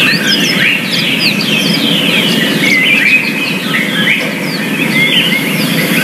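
Yellow-fronted canary singing a continuous, fast warbling song of chirps and quick up-and-down slurred notes, over a steady low background rumble.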